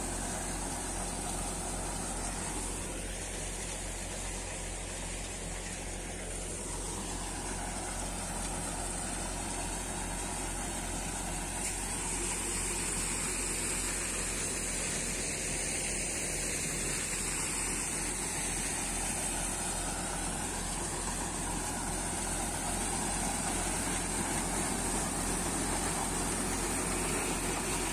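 Bansal multicrop thresher driven by a Mahindra Arjun 555 DI tractor's diesel engine, running steadily while dry crop plants are fed into it: a continuous mechanical drone with a steady high hiss, a little louder from about twelve seconds in.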